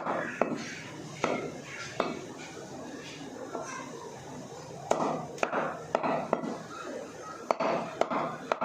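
Beef being chopped by hand: about eight sharp, irregularly spaced knocks of a blade striking meat on a chopping block, with people talking.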